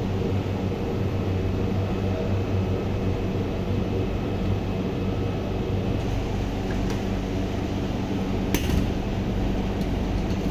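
Steady low machine hum, with one sharp click about eight and a half seconds in.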